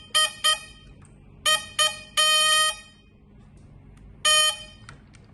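The toy horn of a 1970s wired remote control Porsche 934 model car sounding in short beeps of one steady pitch: two quick pairs, a longer held beep about two seconds in, and a last beep after four seconds.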